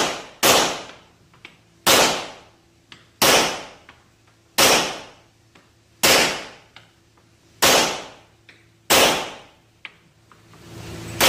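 Rock Island Armory Tac Ultra FS HC pistol, a double-stack 1911, firing about eight shots: a quick pair, then single shots about a second and a half apart. Each shot echoes off the walls of the indoor range.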